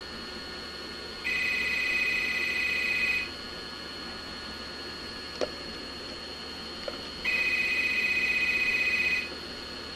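Corded push-button desk telephone ringing twice, each ring a warbling trill about two seconds long, with about four seconds of pause between them. A faint click falls in the pause.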